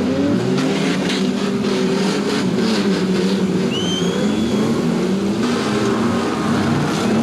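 Several demolition derby car engines running and revving together, with a run of knocks and crunches between about one and three and a half seconds in and a brief high squeal near the middle.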